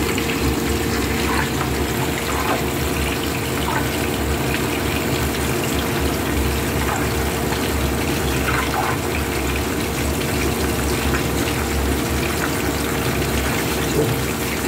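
Whole fish deep-frying in a pan of hot oil: a steady sizzle and bubbling, with scattered small pops. A steady low hum runs underneath.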